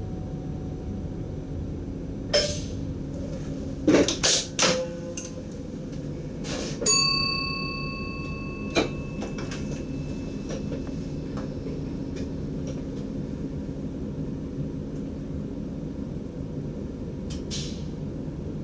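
Steady low hum inside the cab of a DDZ double-decker train, with several sharp knocks and clacks, a quick cluster of them about four seconds in, and one short metallic ring about seven seconds in that fades over a second or so.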